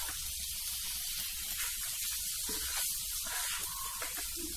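Chopped lemon pieces and spice paste sizzling with a steady hiss in hot oil in a frying pan, stirred with a wooden spatula.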